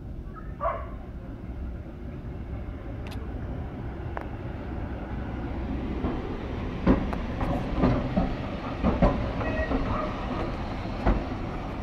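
Porto electric tram no. 273 running on its rails as it approaches and passes close by: a low rumble of steel wheels on track that grows louder. From about seven seconds in, a run of sharp clacks and knocks comes from the wheels running over the track.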